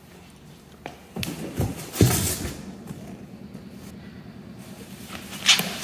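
Cardboard packaging being handled as a box of bubble-wrapped exhaust parts is unpacked: a few scrapes and knocks, loudest about two seconds in, and a sharp rustle near the end.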